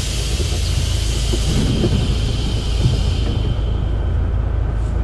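Karosa B 741 articulated city bus with a natural-gas engine idling, under a long hiss of compressed air let out of its pneumatic system that fades away over the first three or four seconds.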